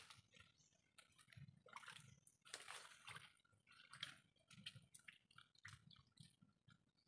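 Faint, irregular squelching and sloshing of hands digging through wet mud and shallow water, feeling for clams.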